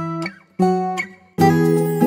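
Background music of strummed acoustic guitar chords, a new chord every second or less, with a fuller, louder chord about one and a half seconds in.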